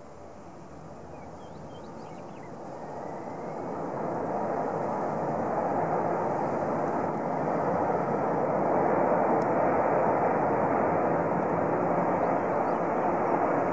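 Jet engines of a Cargojet Boeing 767 on its landing roll, a steady roar that grows steadily louder over the first nine seconds as the jet comes down the runway, then holds loud.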